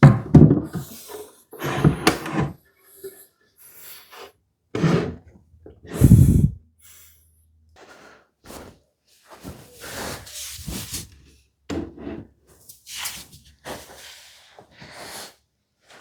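Solid-wood furniture parts being handled and set in place: a series of irregular knocks and thumps of wood on wood, the heaviest about five and six seconds in, followed by softer clatter and rustling.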